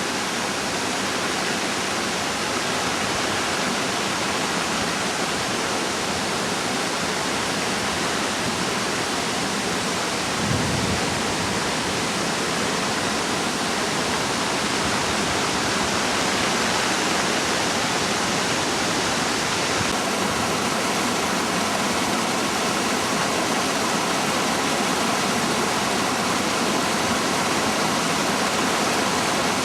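Rain-swollen runoff water rushing and falling down a ravine: a steady, loud rush of water. There is a brief low thump about ten seconds in.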